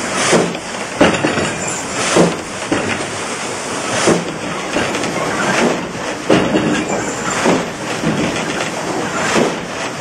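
Water-powered sawmill machinery running: a rhythmic mechanical clatter with a knock roughly once a second, over a steady rushing noise.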